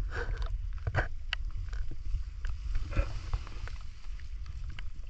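Steady low rumble with scattered small clicks and taps as a live mud crab is handled and tied up with a strip of string.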